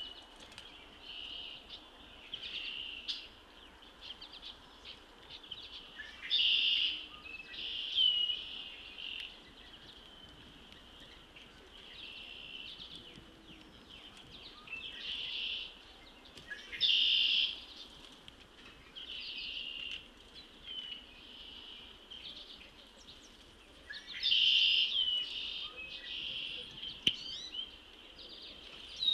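Songbirds singing: short high-pitched phrases, some with quick sweeps in pitch, repeating every few seconds over a faint steady hiss.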